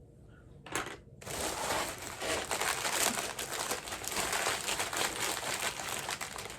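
Crinkling of the packaging of a mystery pin blind bag being handled and unwrapped: a short crinkle just under a second in, then steady crinkling from a little after one second.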